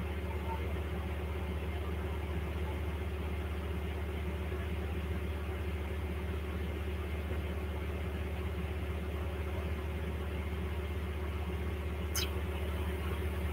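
Steady low hum of a small motor or fan running, with a brief high-pitched squeak near the end.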